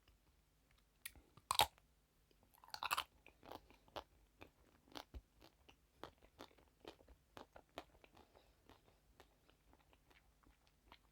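Close-miked eating: a sharp crunchy bite about one and a half seconds in and another crunch a second later, then steady chewing with many small crunches that grow fainter.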